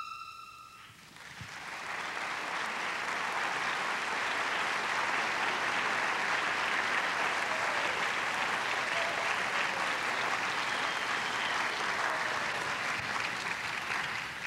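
Audience applauding steadily, building after the last held note of the music dies away about a second in and fading near the end.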